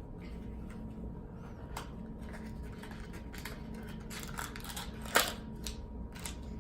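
Toy packaging being handled: scattered rustling and small plastic clicks, with one sharp click about five seconds in.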